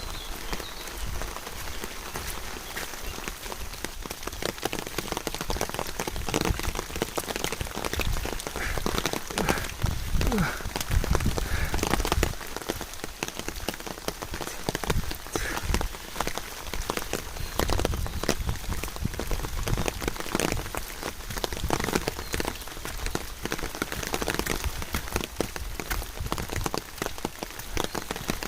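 Steady rain falling, a dense patter of drops striking surfaces close by, with a few low thumps now and then.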